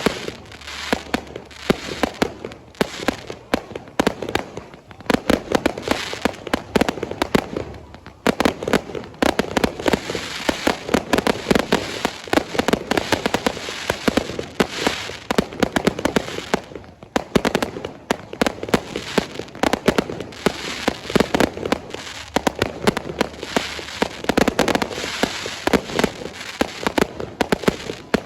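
A fireworks display going off in a dense, rapid barrage of bangs and crackles, many a second, swelling and easing in waves every few seconds.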